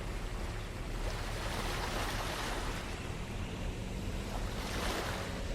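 Sea waves washing onto the shore, swelling twice: about a second and a half in and again near the end. A low rumble of wind on the microphone runs underneath.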